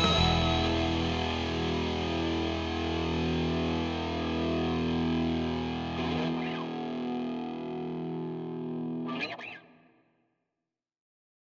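Distorted electric guitar through a Marshall JCM800 amp model, with overdrive, chorus and delay. A chord is left ringing and slowly fades, ending in a short burst of noise about nine seconds in, then silence.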